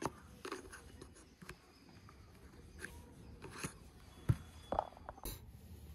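Plastic helmet chin mount being fitted onto a full-face motorcycle helmet by hand: scattered light clicks and scrapes of plastic, the sharpest about four seconds in.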